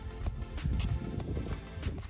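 Background music over a strong, uneven low rumble with short knocks.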